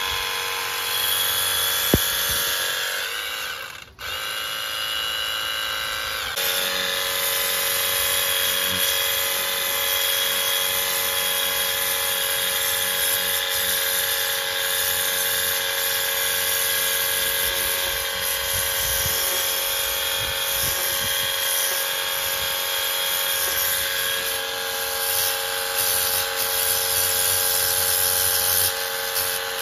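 A machine running steadily with a whining, multi-tone hum. It dies away about four seconds in and starts up again a couple of seconds later, then runs on evenly.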